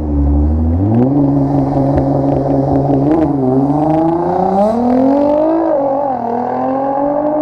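Nissan GT-R R35's twin-turbo V6 through a full titanium 4-inch exhaust, accelerating hard past: the exhaust note jumps up about a second in and keeps climbing in pitch, with a couple of brief dips.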